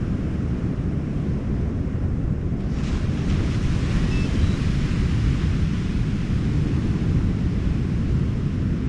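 Wind buffeting the microphone over the wash of ocean surf, with the hiss of breaking waves swelling about three seconds in.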